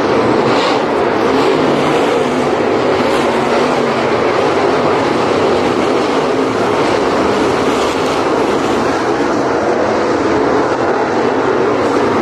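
A pack of dirt late model race cars' V8 engines running hard around a dirt oval, a loud steady roar.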